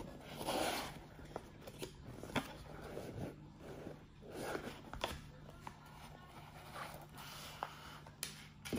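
Cardboard packaging being opened and handled: soft sliding and scraping of the box, with a few light clicks and taps as the parts are lifted out of the foam insert.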